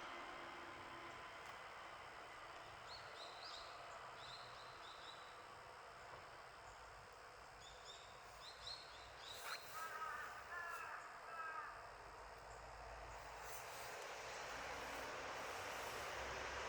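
Steady seaside background hiss, with small birds chirping in short high notes and a bird giving about four harsh calls around the middle.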